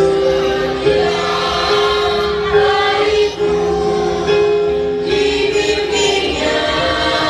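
A song with a group of voices singing together over music, holding each note for about a second.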